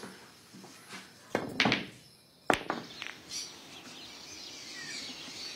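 A sharp knock about two and a half seconds in, then small birds chirping faintly.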